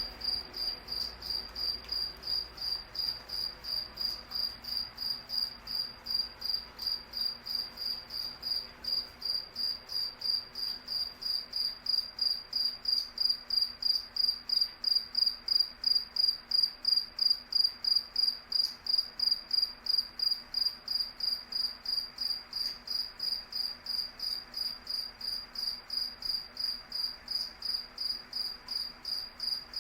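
A cricket chirping in a steady, even rhythm of about three high-pitched chirps a second.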